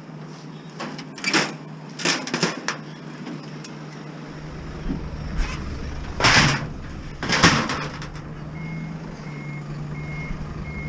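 A few sharp knocks and thumps, then a vehicle's low engine rumble comes in about four seconds in. Near the end a reversing alarm starts beeping, about two beeps a second.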